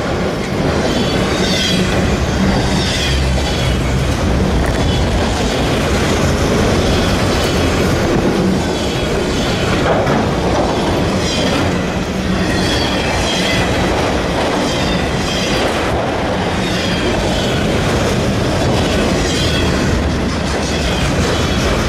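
Freight train of autorack cars rolling past at speed close by: a steady rumble of steel wheels on rail with a repeating clickety-clack over the rail joints, and a high metallic squeal that comes and goes about every second.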